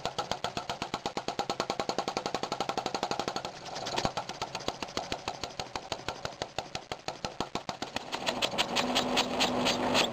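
Paradox flame-licker (vacuum) gas engine running on illuminating gas, clicking in a steady rhythm of about five beats a second. In the last couple of seconds the beats come faster as the gas pressure is raised and the engine speeds up.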